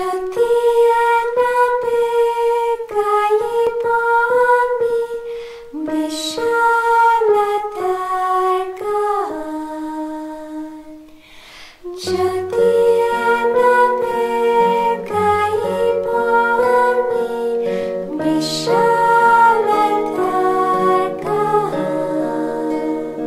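Slow devotional song sung by a women's vocal group with soft instrumental accompaniment. The first half carries a single melody line with light plucked notes. About halfway in it becomes fuller, with chords and a low sustained bass.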